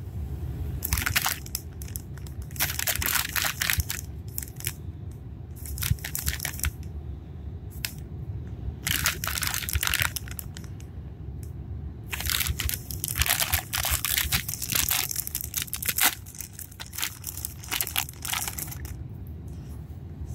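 Thin clear plastic toy bag crinkling and crackling in irregular bursts as it is squeezed, handled and opened.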